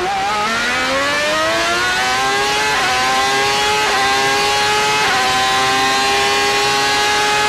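Onboard sound of a 1995 Ferrari 412T2 Formula 1 car's 3.0-litre V12 at full throttle. The revs climb for the first few seconds, then come three quick upshifts about three, four and five seconds in, each a brief dip in pitch, after which the engine holds high, near-steady revs.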